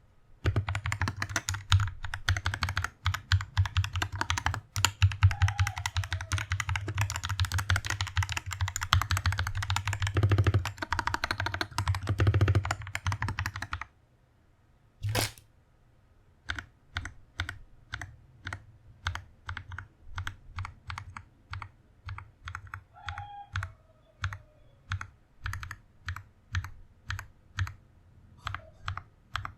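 Typing on an Orbiter67 mechanical keyboard: a fast, continuous run of key clacks for about fourteen seconds, then a pause and one louder single clack. After that the keys are pressed one at a time, about two or three a second.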